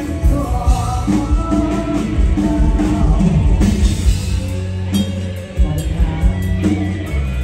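Live band playing rock music with a man singing over a steady drum beat.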